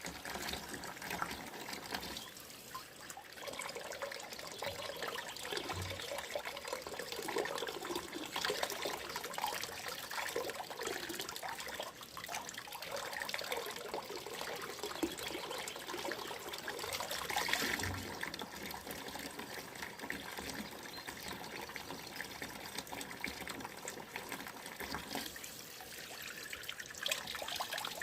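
Running water trickling steadily, with small gurgles through it.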